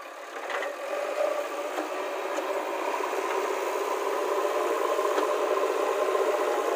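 JCB 3DX backhoe loader's diesel engine working under load as the machine drives its lowered front bucket into loose soil, getting louder over the first couple of seconds and then holding steady, with a few faint clicks.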